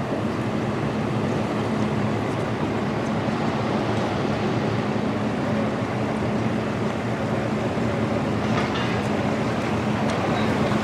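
A motor running steadily, with a constant hum under a noisy wash.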